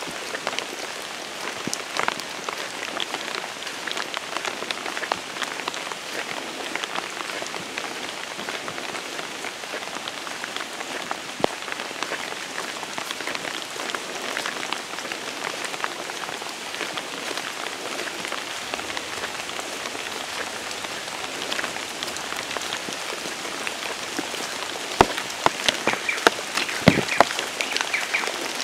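Steady rain falling on leaves and a wet dirt road: an even hiss full of fine drop ticks, with a few louder ticks near the end.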